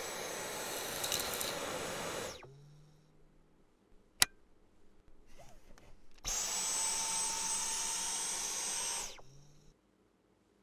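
Dyson V11 Torque Drive cordless stick vacuum running in two bursts, each switching on and off abruptly, with a steady high-pitched motor whine over the rush of air. A single sharp click falls between the two bursts.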